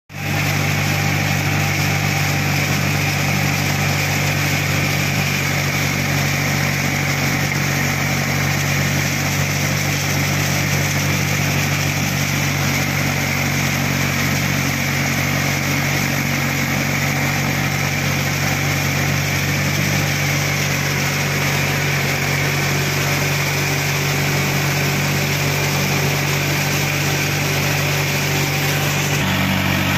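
Mahindra 415 DI tractor's four-cylinder diesel engine running steadily under load, driving a rotary tiller (rotavator) through its PTO shaft as the blades churn wet soil.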